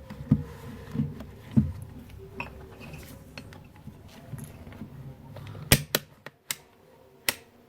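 A few dull handling knocks, then a series of sharp clicks as a multimeter's rotary selector dial is turned through its detents to the voltage setting.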